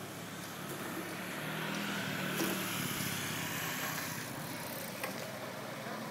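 A road vehicle going by, its engine and tyre noise swelling and then fading over a few seconds, with a sharp click about five seconds in.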